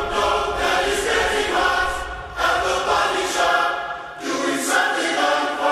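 Background song with singing, in sung phrases that break off briefly about two and four seconds in.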